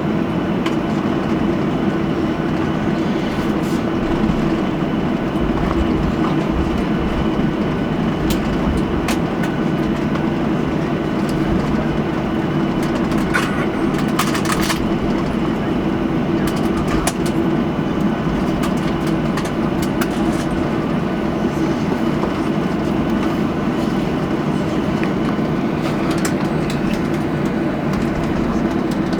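Cabin noise inside a Boeing 737-800 after landing: the engines' steady hum and rumble at taxi, with a few scattered light clicks.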